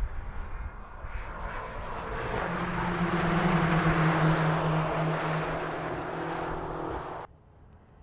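BMW X6 M's twin-turbo V8 running hard, its steady engine note growing louder over about three seconds and holding, then cut off abruptly about seven seconds in.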